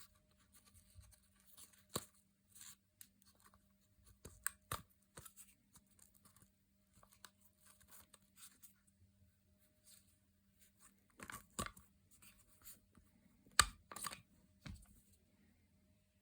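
Packaging being opened and handled: irregular rustling and tearing with scattered sharp clicks and knocks, the loudest click coming near the end.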